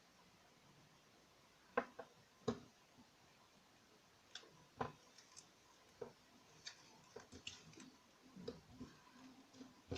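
Glittery slime being kneaded and pressed by hand to mix in gouache paint: faint, irregular sticky clicks and small pops, a few sharper ones in the first half and a quicker scatter of small ones in the second half.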